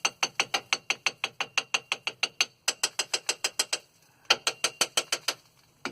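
Ratchet wrench clicking in three quick runs, about seven clicks a second, with short pauses between them, during work on a car's front brake caliper.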